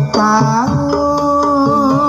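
Javanese jaranan gamelan music playing loudly: hand-drum strokes under a melody that settles into one long, wavering held note about halfway through.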